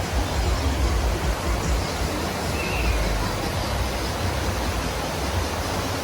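Waterfall: a steady rush of falling water, with a heavy, uneven low rumble beneath it.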